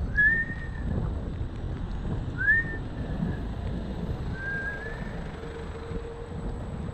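Wind rushing over the microphone and rumbling road noise from a moving Xiaomi M365 electric scooter. Three short whistle-like tones that glide upward come a couple of seconds apart.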